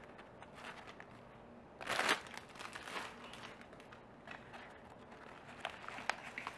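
Crinkly packaging being handled and unwrapped by hand, with a loud crinkling burst about two seconds in and lighter scattered rustles and clicks after it.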